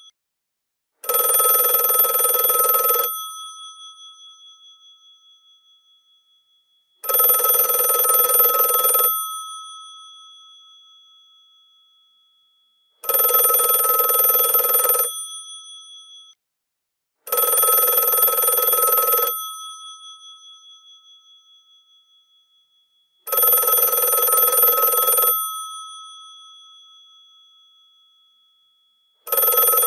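GPO 746 rotary telephone's bells ringing in bursts of about two seconds, each leaving a ring that fades away over several seconds. The bursts repeat about six times, mostly six seconds apart, one coming sooner.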